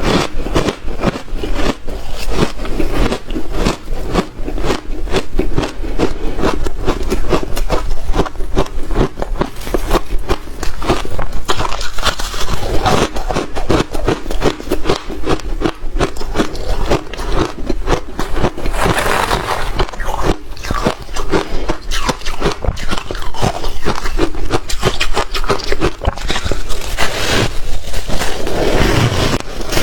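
Hard shaved ice being bitten and chewed close to the microphone: a dense, continuous run of crisp crunches.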